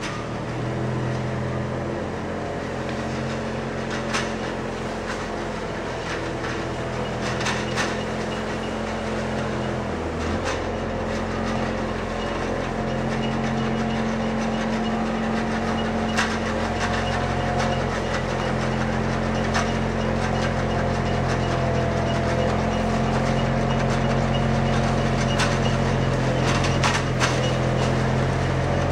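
Schäffer mini loader's engine running steadily while its hydraulic TMT Flextrim 150 hedge trimmer cuts the hedge; the engine note rises and gets louder about ten seconds in, with a few sharp cracks scattered through.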